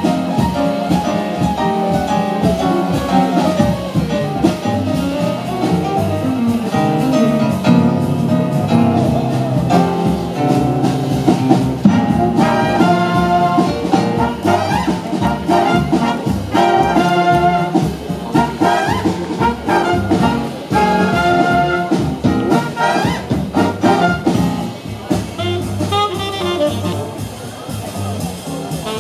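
Jazz big band playing: trumpets, trombones and saxophones together over a rhythm section, with a passage of short, repeated full-band chords about midway.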